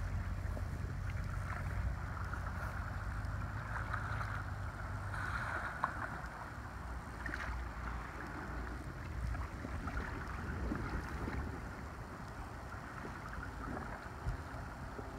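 Wind rumbling on the microphone over the wash of creek water, as a kayak is paddled past with a few faint paddle splashes and knocks.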